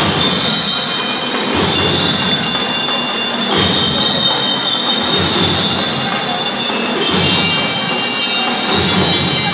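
A school drum and lyre band playing: the high ringing notes of bell lyres carry a melody over the drums.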